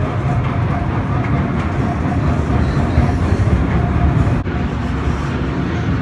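Small open-car park train running along its track, a steady low rumble of wheels and cars.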